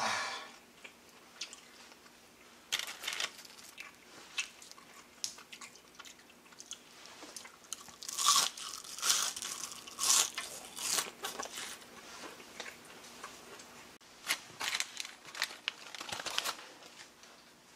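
Crisp deep-fried acacia-flower fritters crunching as they are bitten and chewed, in irregular clusters of sharp crackles, with the busiest run of crunches in the middle.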